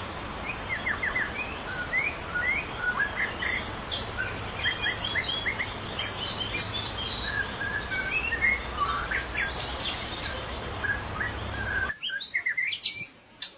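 White-rumped shama (murai batu) singing a fast, varied run of short whistled notes and chirps over a steady background hiss. The hiss drops out suddenly near the end.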